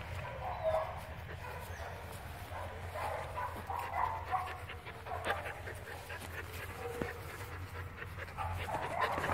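A hound-type dog making short, high whines, with panting in between.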